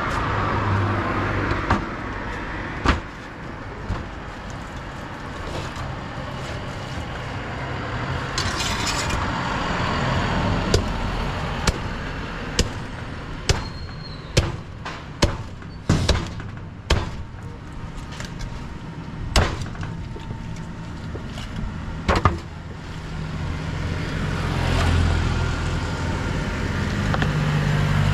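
Irregular sharp knocks of a knife or cleaver chopping fish on a cutting block, coming thickest in the middle. Road traffic runs underneath, with a vehicle engine rising near the start and again near the end.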